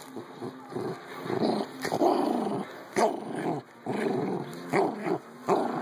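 Dogs growling in play over a stuffed toy, with a few sharp, short barks breaking in.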